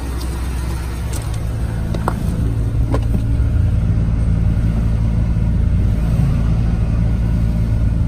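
Chevy 6.0 L Vortec V8 idling steadily, with a few light clicks in the first three seconds.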